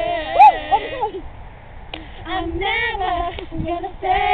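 Girls' voices singing a song together without accompaniment, with one loud high note near the start; the singing stops for about a second, then picks up again.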